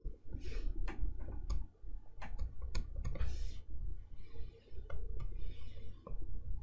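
Plastic stylus nib on an XP-Pen Artist 15.6 Pro pen display, tapping and scratching across the screen in short drawing strokes: irregular sharp clicks mixed with brief scratchy strokes, over a low background rumble.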